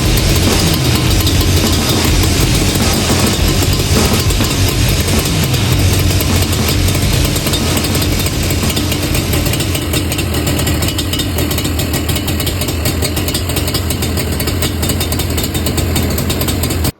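Yamaha Banshee's twin-cylinder two-stroke engine running steadily, freshly rebuilt and in its first heat cycles, running rich on 28:1 premix. It cuts off suddenly at the end.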